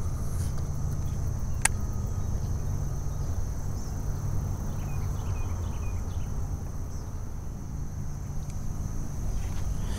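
Steady high-pitched drone of crickets in the swamp, over a low rumble, with one sharp click about a second and a half in.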